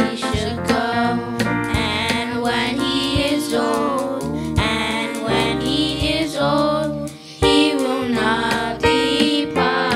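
Children singing a song into microphones over an instrumental backing track, with a brief dip about seven seconds in.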